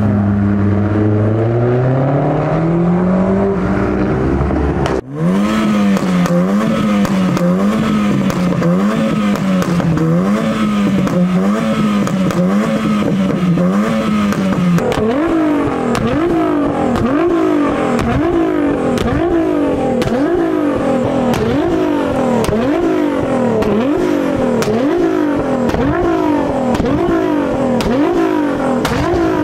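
A car pulling away with its engine climbing steadily in pitch. After a cut about five seconds in, a black hatchback's engine revs up and down in smooth blips about once a second. From about fifteen seconds in, a Nissan GT-R's twin-turbo V6 is blipped in sharp revs about once a second, with crackles from the exhaust.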